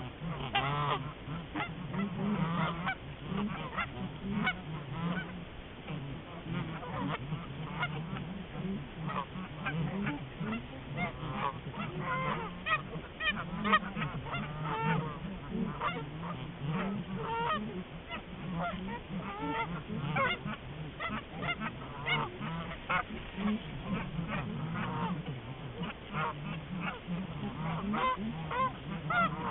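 A large flock of geese honking, many birds calling at once in a dense, continuous chorus of short overlapping honks.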